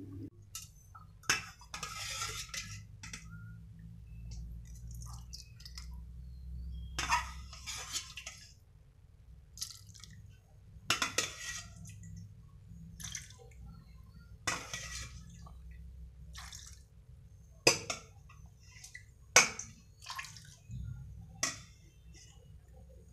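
Chicken simmering in broth in a steel pot, with about seven sharp metal clinks against the pot and several short watery bursts of bubbling, over a low steady rumble.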